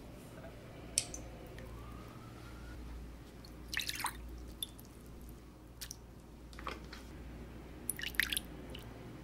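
Liquid dripping and splashing in a glass bowl as milk and butter go in, with a quick cluster of drips near the end as vanilla extract is poured from its bottle.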